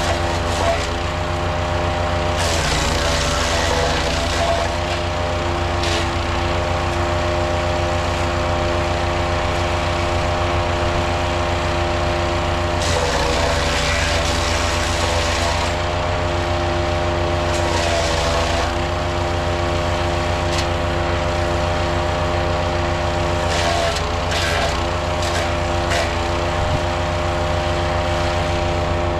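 Powerfist 420cc gas wood chipper running steadily, with brush fed through it: about four times the engine note sags under load while the branches are chipped with a rough, crackling shredding noise, then recovers.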